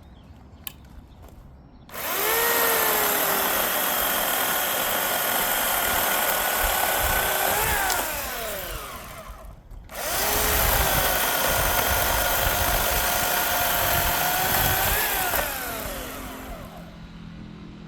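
Electric chainsaw running twice, each run rising to a steady high whine for several seconds and then winding down.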